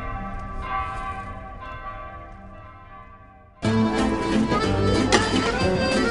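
Background music: sustained bell-like chimes fade out over about three and a half seconds, then louder, lively music led by an accordion starts abruptly.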